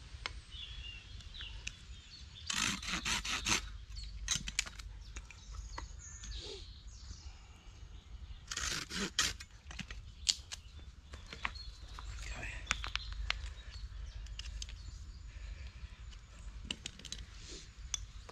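Folding pruning saw cutting through a thin stick in two short bursts of quick strokes, about six seconds apart, with scattered small clicks of handling between them.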